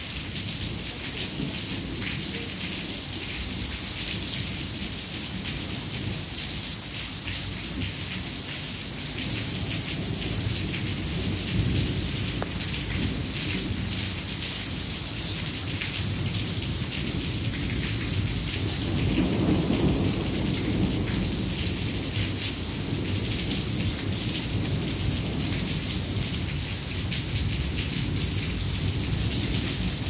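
Steady rain falling with thunder rumbling low beneath it; the rumble swells to its loudest about two-thirds of the way through.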